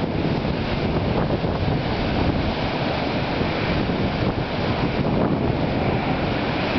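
Wind-driven estuary waves washing in a steady rush, with strong wind buffeting the microphone and adding a low rumble.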